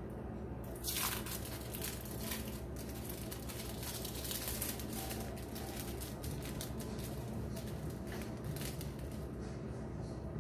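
Thin plastic wrappers of individually wrapped processed cheese slices crinkling as the slices are peeled out by hand. The crinkling is a dense, irregular crackle that starts about a second in and dies down near the end.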